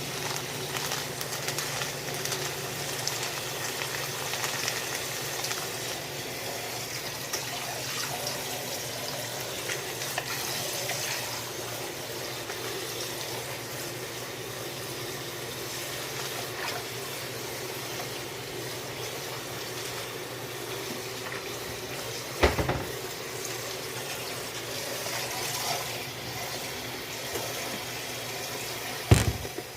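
Food cooking in a pan on the stove, a steady sizzling hiss, with two sharp knocks near the end.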